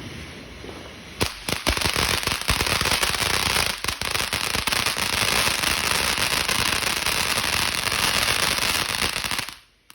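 Ground firework going off: a few sharp pops about a second in, then a dense, rapid crackle of small pops lasting about eight seconds, cutting off abruptly near the end.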